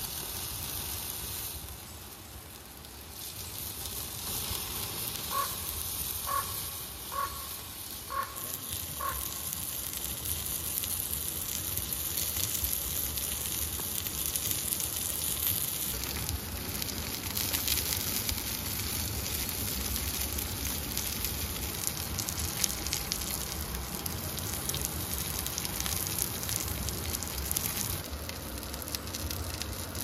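Burger patties sizzling steadily on a hot slab over a wood campfire, with the fire crackling. A run of five short, evenly spaced pips sounds a few seconds in.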